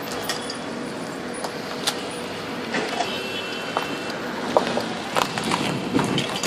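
Outdoor street ambience: a steady hum of road traffic, with scattered short clicks and knocks close to the microphone.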